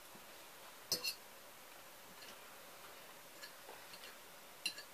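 A metal fork clinking against a ceramic plate: a quick double clink about a second in, a sharper one near the end, and a few faint ticks in between.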